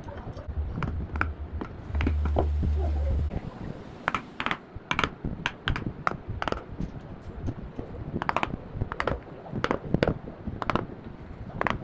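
Irregular sharp taps and knocks of hand tools working wood. A low hum runs under them from the start to about three seconds in.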